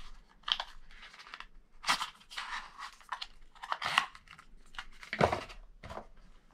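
A small cardboard box and its paper packaging being handled and opened by hand: irregular rustling, crinkling and scraping in short bursts, the sharpest about two, four and five seconds in.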